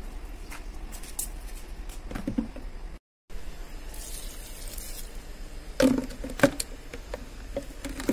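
Water poured from a small plastic mug onto a potted plant, pattering and splashing on the soil, with two sharp knocks a little past the middle.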